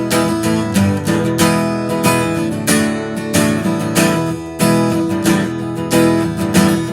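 Acoustic guitar strummed in a steady rhythm, a song's instrumental intro before the vocal comes in.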